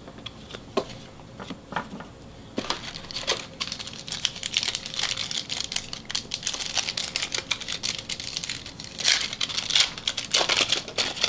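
A trading-card pack wrapper being torn open and crinkled by hand. There are a few light clicks of handled cards first, then a dense crackling from about two and a half seconds in, loudest near the end.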